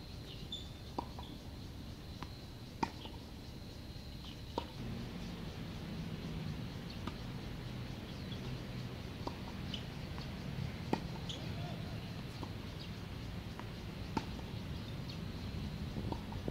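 Tennis ball struck back and forth with rackets in a rally: sharp pops every second or two, some louder and some fainter. Faint bird chirps sound in the background, and a low hum grows about five seconds in.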